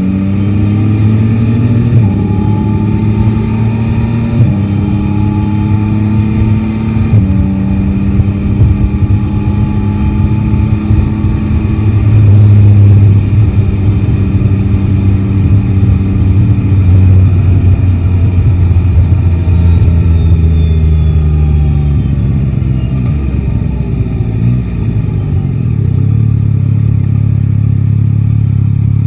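Yamaha Tracer 9 GT's three-cylinder engine accelerating, its pitch climbing and dropping back with three quick upshifts, then running at a steady cruise. Later the revs fall away as the bike slows, settling to a low steady note near the end.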